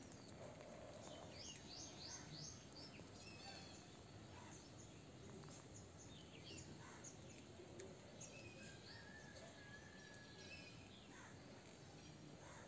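Faint birds chirping over a low hiss of outdoor background noise: a quick run of about five high chirps a couple of seconds in, scattered short calls after, and one held thin note a little past the middle.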